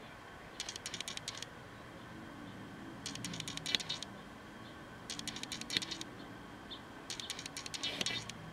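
Damp Real Techniques makeup sponge dabbed quickly against the skin of the face, in four short bursts of rapid soft taps.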